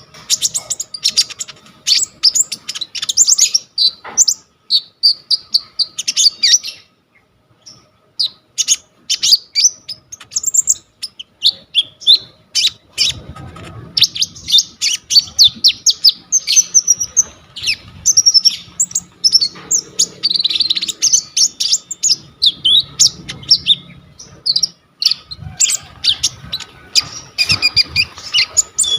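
A konin songbird singing fast and continuously in its full 'gacor' song, a dense run of high chirps, trills and twitters packed with phrases borrowed from other birds, with a short pause about seven seconds in.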